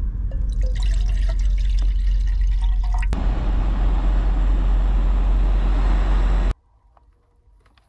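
Water poured from a bowl into the pot of a backpacking canister stove, gurgling unevenly. About three seconds in, the gas burner is heard running under the pot, a steady hiss with a low rumble, heating the water, until it stops abruptly.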